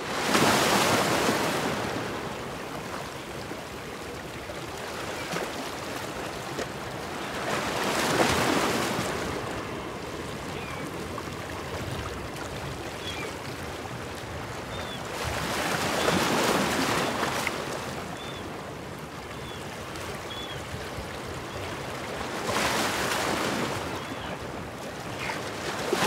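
Ocean surf washing in and out, swelling four times at about eight-second intervals as waves break and recede, with a few faint short bird chirps between them.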